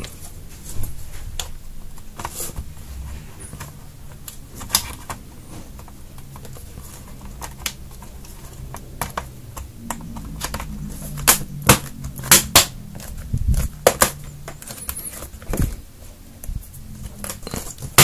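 Plastic back cover of a Lenovo Yoga 510 laptop being pressed back onto the chassis: irregular sharp clicks and snaps as its clips seat, with handling rumble. A run of louder snaps comes about two-thirds of the way through.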